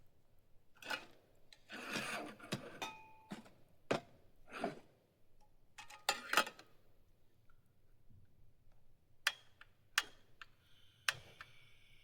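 Irregular clicks, knocks and rustles of camp cooking gear being handled while getting ready to cook. A louder rustle comes about two seconds in, sharp knocks follow over the next several seconds, and a steady high hiss joins near the end.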